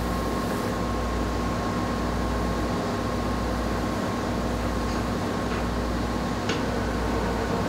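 Parker-Majestic 2EA cylindrical grinder running: a steady machine hum from the running wheel spindle, with a steady high whine from the ball-screw axis drive motor as an axis is jogged.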